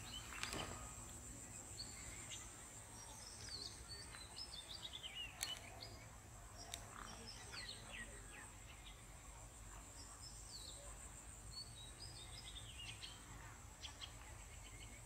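Outdoor pondside ambience: birds calling in many short, falling chirps over a steady, high, pulsing insect drone. A few sharp clicks, the loudest about five seconds in.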